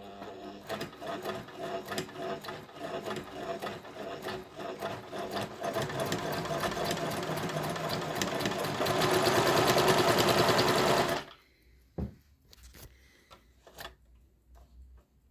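Pfaff 204 sewing machine stitching a wide zigzag, speeding up and getting louder until it stops abruptly about 11 seconds in. A single click follows shortly after.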